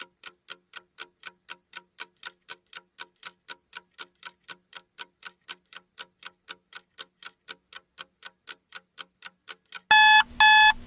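Countdown-timer sound effect: a clock ticking steadily at about four ticks a second, then two loud electronic beeps near the end as the timer runs out at zero.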